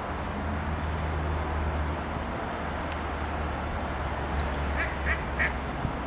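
Steady low drone of a light aircraft's piston engines. A few short bird calls follow in quick succession near the end.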